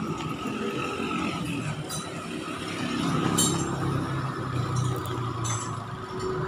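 Roadside traffic: a vehicle engine rumbles, swelling around the middle, with a few sharp metallic clinks.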